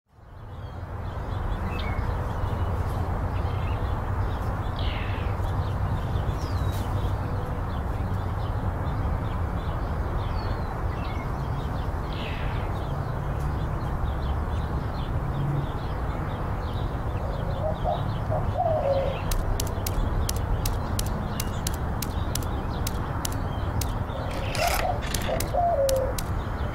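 Outdoor garden ambience: a steady low rumble with birds chirping now and then and a dove cooing about two-thirds of the way in and again near the end.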